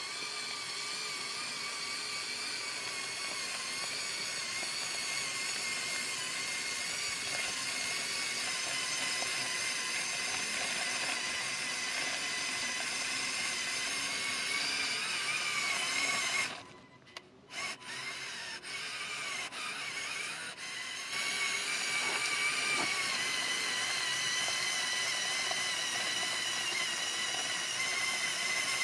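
Electric drive motors and gearing of a LEGO Technic Mercedes-Benz Zetros trial truck (set 42129) whining as the remote-controlled model drives. About 17 s in it stops briefly, then starts and stops a few times before running steadily again.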